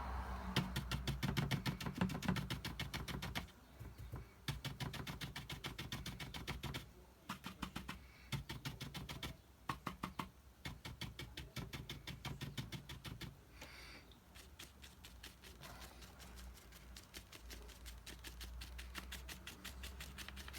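Paintbrush tapping and dabbing quickly on watercolour paper: runs of many quick light taps a second, broken by short pauses.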